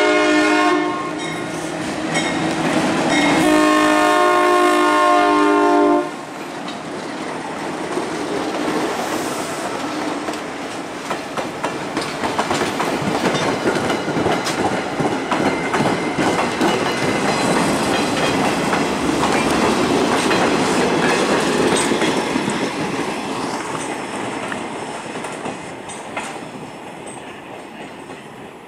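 The ALCO RS3 diesel locomotives' air horn sounds a short blast and then a longer one, several notes at once. The locomotives and cars then roll past, wheels clicking over the rail joints, the rumble fading near the end.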